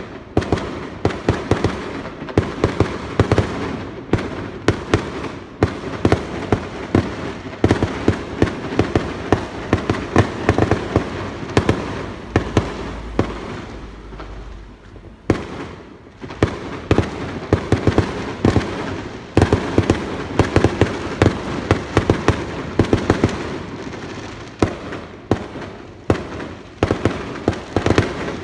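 Fireworks display: rapid, overlapping bangs of fireworks bursting, with crackling between them. There is a brief lull about halfway through, then the bangs resume just as densely.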